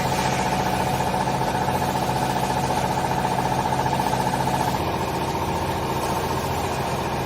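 Vertical hydraulic used-clothes baler's motor and hydraulic pump running, a steady hum with a fast even pulse; the tone shifts slightly about five seconds in.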